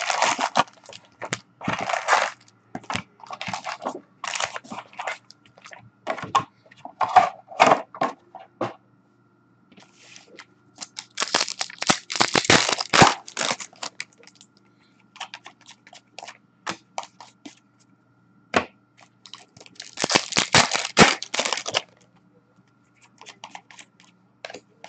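Upper Deck hockey card pack wrappers being torn open and crinkled, with cards shuffled between, in repeated bursts; the longest spells of tearing and crinkling come about eleven and twenty seconds in.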